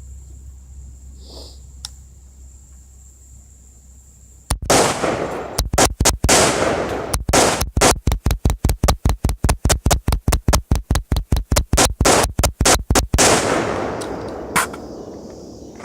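AR-15 rifle fired in rapid semi-automatic fire. A few shots come about four and a half seconds in, then a long fast string of about five shots a second, each shot echoing, which stops suddenly near the end.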